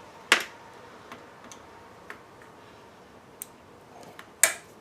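Scattered small metal clicks and ticks from screwdriver work on the metal case of a car CD/cassette receiver being taken apart, with a sharp click about a third of a second in and another near the end.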